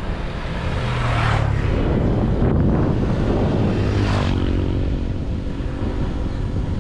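Wind rushing and buffeting over the camera microphone while riding a bicycle, with a low steady hum underneath and two louder swishing gusts, about a second in and about four seconds in.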